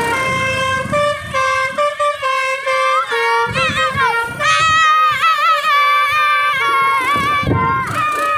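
Basuri V3 multi-tone telolet bus horn playing a long melody of held notes that step from pitch to pitch, with sliding, wavering notes in the middle of the phrase.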